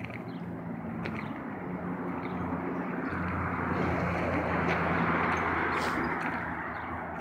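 A road vehicle passes by. Its rushing noise swells to a peak about five seconds in and then fades, over a steady low engine hum.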